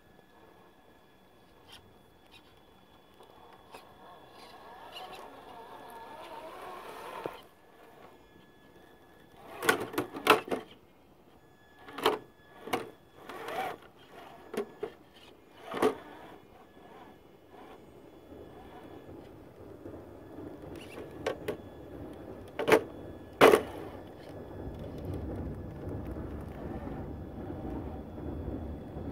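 Traxxas TRX-4 RC crawler with its stock electronics and 21-turn Titan motor, its motor and gears whirring under load as it climbs rock, the whir building and then cutting off about a quarter of the way in and running again near the end. Sharp clacks and knocks of tires and plastic body on rock come in a cluster about a third of the way in, with two loudest knocks about three-quarters through, over a thin steady electronic whine.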